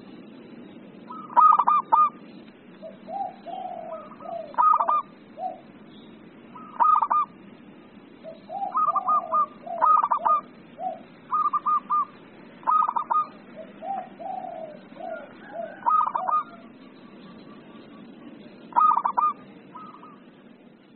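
Zebra dove (perkutut) cooing in full song: clusters of quick, clipped coos repeated every few seconds, with lower, softer notes between them.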